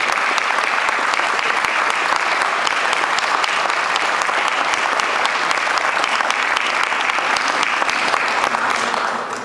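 Audience applauding steadily, a dense patter of many hands clapping that dies away near the end.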